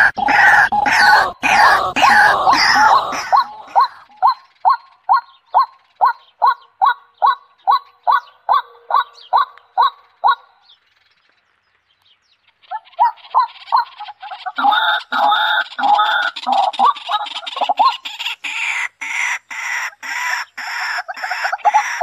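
White-breasted waterhen calling: loud honking notes repeated about two to three times a second, which break off for about two seconds midway and then resume faster and more crowded.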